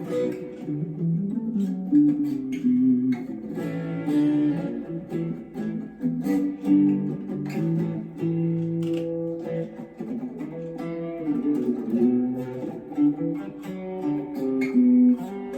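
Gear4Music LA Select Strat-style electric guitar on its bridge pickup, playing a continuous run of picked single notes and chords.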